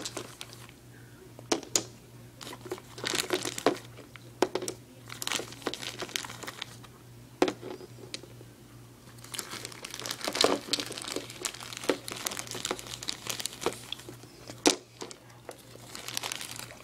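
Clear plastic blister packaging crinkling and crackling as small cork-stoppered glass bottles are handled and moved in it, with scattered sharp clicks. A faint steady low hum sits underneath.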